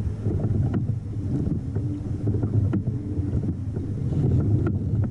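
Wind rumbling on the microphone of a camera mounted on a kayak at sea, a steady low buffeting, with a few faint knocks.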